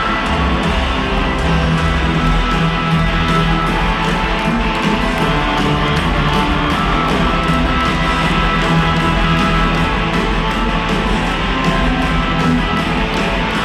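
Rock band playing live: electric guitar over a steady drum beat.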